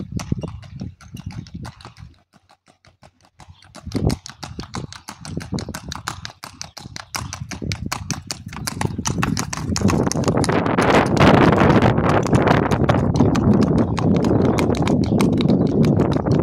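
A ridden horse's hooves clip-clopping on a paved street in a quick, even run of hoofbeats, with a brief pause about two seconds in. From about ten seconds in, a louder steady rushing noise rises under the hoofbeats.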